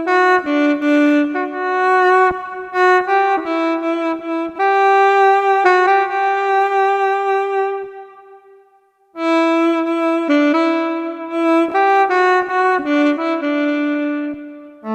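Sampled alto saxophone from SampleTank on an iPhone, played one note at a time from an Akai EWI USB wind controller, with its volume following the player's breath. A long held note fades away about eight seconds in, and after a short gap the melody picks up again.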